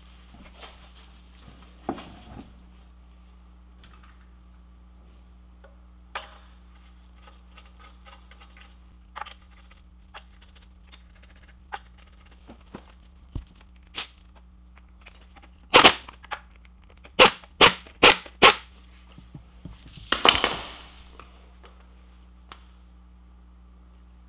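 Wheel lug nuts being fitted onto the studs by hand: scattered light metallic clicks and taps, then five loud sharp clanks in quick succession a little past halfway, followed by a short rasping noise.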